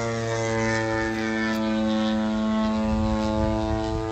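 Extreme Flight Laser radio-controlled aerobatic plane in flight, its motor and propeller giving a loud, steady droning note that holds its pitch.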